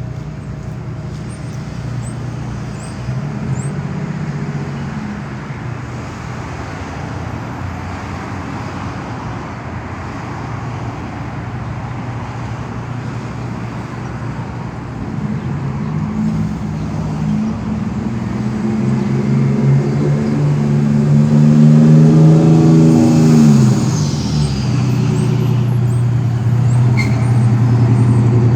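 Street traffic with a large vehicle's engine humming nearby. It grows louder through the second half and drops in pitch as it passes, about three-quarters of the way through, then traffic stays loud.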